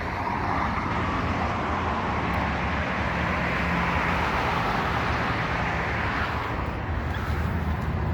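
Steady vehicle noise passing by, swelling over the first second and fading about six seconds in, over a low steady hum.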